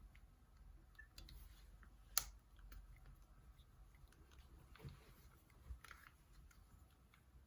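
Near silence with faint scattered clicks and handling noise, one sharper click about two seconds in; no ringtone is playing.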